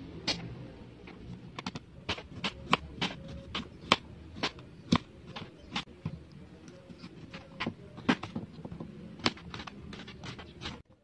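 Kitchen knife slicing chayote on a cutting mat: a string of irregular sharp clicks, about two or three a second, as the blade cuts through the firm flesh and taps the board.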